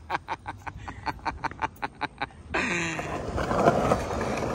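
A man laughing in quick rhythmic 'ha-ha' pulses, about five a second, that fade away. About two and a half seconds in, the sound cuts to skateboard wheels rolling over paving tiles.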